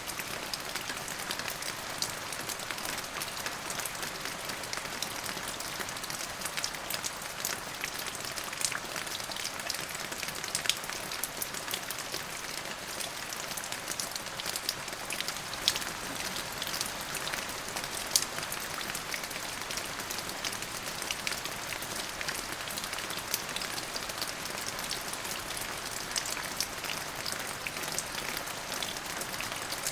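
Steady rain falling and pattering on a surface, a constant hiss with many separate sharp drop impacts scattered through it.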